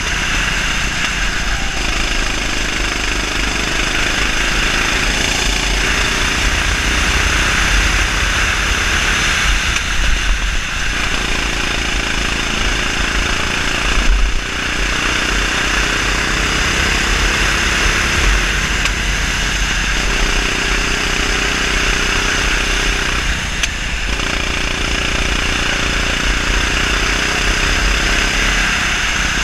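A 390cc single-cylinder four-stroke kart engine running hard at speed, its pitch dipping and climbing back a few times as the kart slows for corners and accelerates out. Strong wind noise on the onboard microphone runs under it, with a brief jolt about fourteen seconds in as the kart rides over a kerb.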